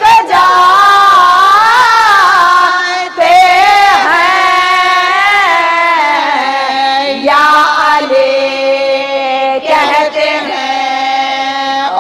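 A woman's voice chanting a marsiya, an Urdu elegy, in slow melodic recitation. She draws out long held notes that waver and glide in pitch, with brief breaths between phrases.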